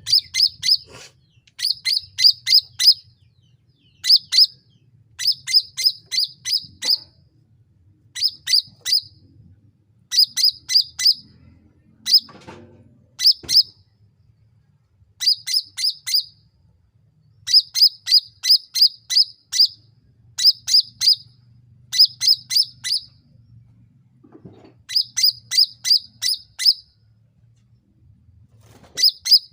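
Cucak ranting (grey-bellied bulbul) calling in quick clusters of four to six sharp, high chirps, each cluster repeated every second or two.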